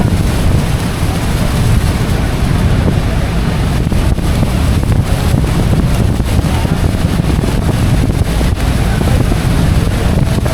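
Steady loud rush of wind and falling water from the spray of Horseshoe Falls, with wind buffeting the microphone heavily at the low end and a tour boat's engine running underneath.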